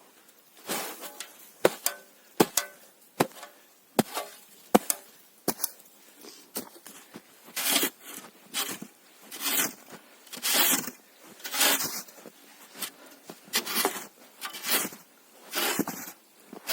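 Wood being worked by hand: a run of sharp, irregular knocks, then from about halfway a steady series of rasping strokes, roughly one a second.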